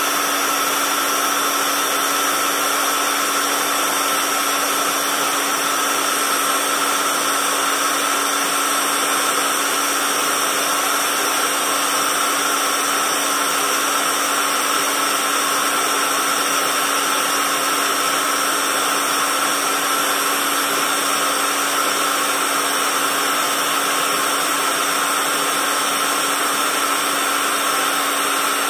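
Quick-Fill AC electric air pump running steadily, blowing air into an exercise ball through its valve: an even, unbroken whirring hum with a constant whine over it.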